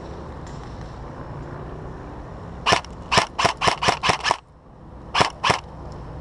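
M4-style airsoft rifle firing quick single shots: seven sharp cracks about four a second, then two more after a short pause.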